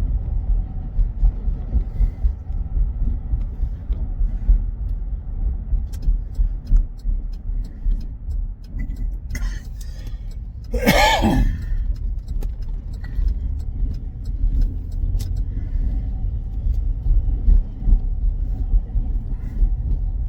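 Road noise in the cabin of a moving Buick: a steady low rumble. About halfway through, a short pitched sound slides down in pitch over about a second.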